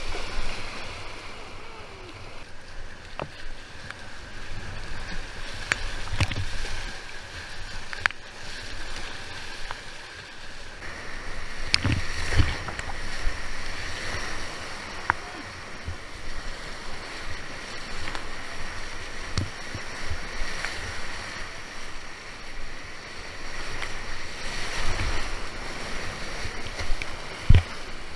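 Rushing whitewater around a kayak running a rapid, with occasional low thuds from paddle strokes and water striking the boat. The water noise changes character about ten seconds in.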